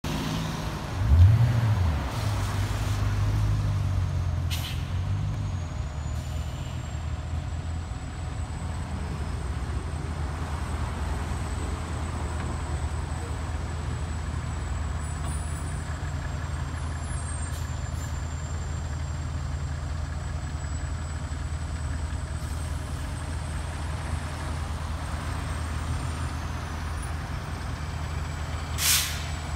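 A fire engine's diesel engine running steadily at idle, with a brief low surge about a second in. A short, sharp air-brake hiss comes near the end.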